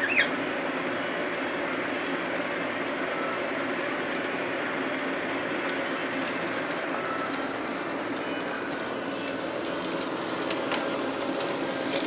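Steady mechanical whirring hum, like a fan or air conditioner. A single short rising chirp sounds right at the start, and a few light clicks come near the end.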